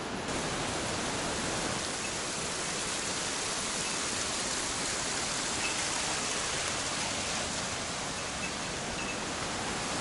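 Steady rush of a mountain stream tumbling over rocks, an even hiss of falling water.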